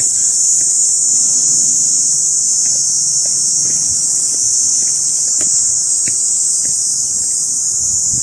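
Steady chorus of cicadas: one continuous, loud, high-pitched buzzing drone that never lets up.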